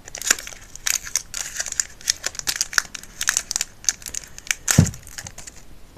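Foil Pokémon booster-pack wrapper being crinkled and torn open from the back, irregular crackling, with one louder bump about five seconds in.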